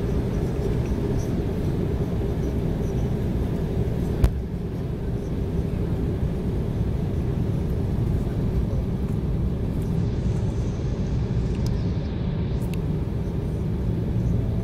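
Steady low cabin rumble of an Embraer 190 airliner in flight, engine and airflow noise heard inside the cabin, with a single sharp click about four seconds in.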